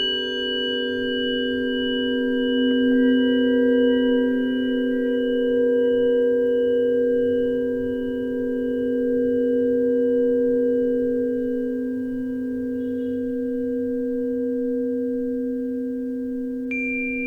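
Several tuning forks ringing together in long sustained pure tones that slowly swell and fade. Near the end a fresh strike adds a new, higher tone.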